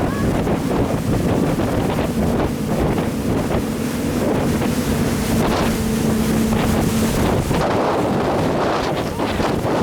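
Jet boat running on the river, its engine noise mixed with water rush and wind buffeting the microphone. A steady low engine hum stands out through the middle.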